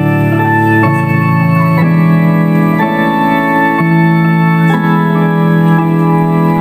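Organ playing slow, sustained chords that change about once a second.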